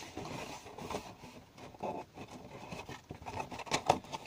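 Light scraping and rustling of a homemade cardboard vending machine being handled as a foam squishy toy is put inside, with a few short taps near the end.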